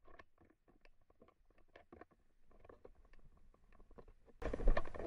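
Hiking boot footsteps crunching and scraping on a loose, stony serpentinite mountain trail. The irregular steps are faint at first and much louder in the last half-second or so.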